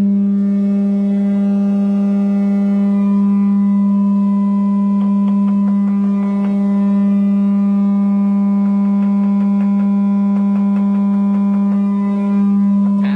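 Fender Blues Deluxe Reissue amplifier reproducing a steady sine test tone of about 200 Hz, with overtones above it. The tone holds steady without a buzz: the amp works again after its broken ribbon-cable wires were resoldered. Faint light ticks come in between about 5 and 12 seconds.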